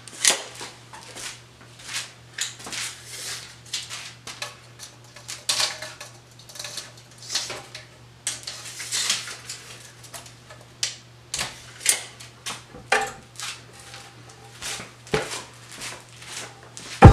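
Wooden boards knocking and clattering at irregular intervals as they are shifted in a lumber rack and measured with a tape measure, over a low steady hum.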